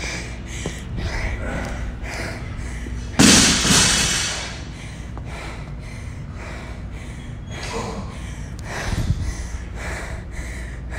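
A person breathing hard and fast, panting from exertion. About three seconds in there is one loud, sudden rustling burst of handling noise that fades over about a second.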